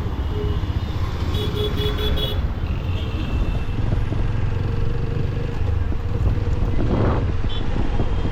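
Steady rumble of a motorcycle ride in traffic, with engine and wind noise. A vehicle horn beeps several short times about a second and a half in.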